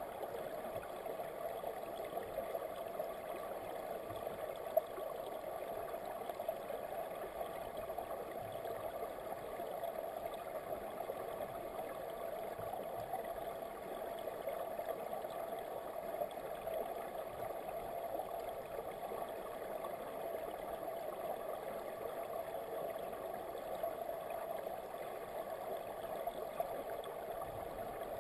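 Steady, muffled rush of flowing river current heard underwater in a shallow side channel.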